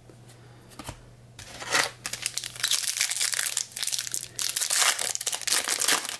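Wrapper of a 2021 Bowman Hobby baseball card pack crinkling and tearing as it is ripped open, starting about a second and a half in.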